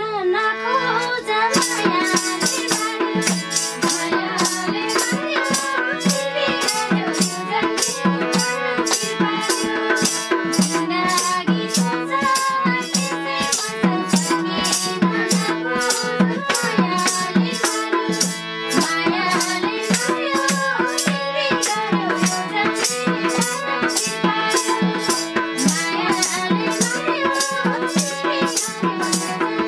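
Live Nepali folk accompaniment: a harmonium playing the tune over a steady beat of madal drum, a jingling tambourine and hand clapping.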